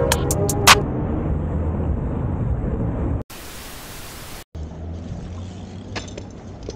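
Chiming music ends in the first second, leaving a low rumble; then, about three seconds in, a burst of TV-style static hiss from a glitch transition effect lasts just over a second and cuts off sharply. A lower, quieter rumble follows.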